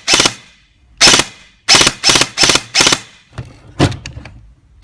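Upgraded airsoft electric gun (AEG) firing a quick series of shots, about six in the first three seconds, each a sharp crack of the gearbox cycling. Then quieter clicks and a dull thump.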